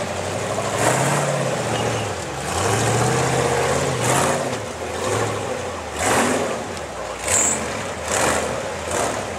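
Rock-crawling buggy's engine revving in repeated bursts as it climbs over boulders, its pitch rising and falling with each push of the throttle.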